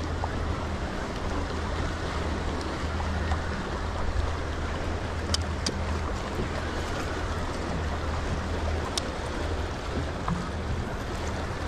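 A boat engine idling steadily under wind and water noise, with a few short sharp clicks.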